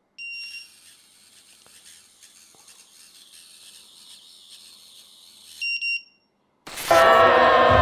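Electronic beeps from an FPV quad being armed on the bench without propellers: one short beep, a faint high whir from the brushless motors, then a quick double beep. About seven seconds in, the motors throttle up to a loud whine of several pitches.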